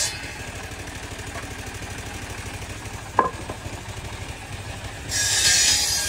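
Table-mounted circular saw running between cuts, with a steady low throb from its drive and one sharp knock about three seconds in. About five seconds in, the blade bites into a wood plank and the loud cutting noise starts again.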